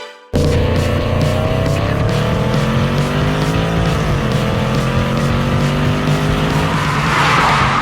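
Cartoon sound effect of a car engine, starting suddenly and revving higher and higher as it speeds up, over a steady beat; near the end a tyre squeal begins as the car skids.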